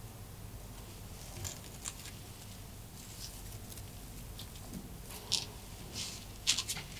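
Rabbit shuffling and nosing about a paper piñata: scattered soft scratching and rustling, with louder crisp rustles in the last couple of seconds.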